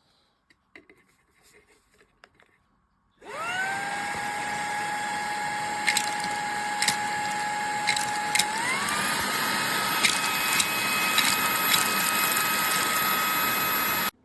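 Fanttik Slim V8 Apex cordless handheld vacuum switched on after a few faint handling clicks. Its motor spins up quickly to a steady high whine, steps up to a higher speed about halfway through, and cuts off abruptly near the end. Several sharp ticks sound over the running motor.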